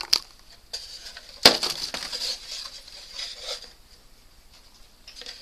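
Wooden fingerboard fun box ramp being handled and set down: a sharp knock about one and a half seconds in, with a click before it and a few smaller clicks and rustles after.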